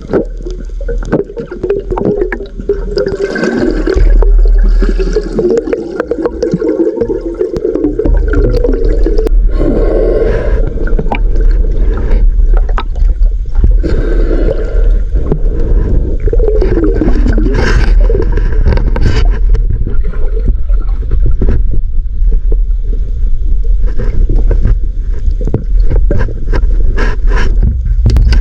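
Muffled underwater water noise: a steady low rumble with gurgling, wavering swishes and scattered scraping clicks.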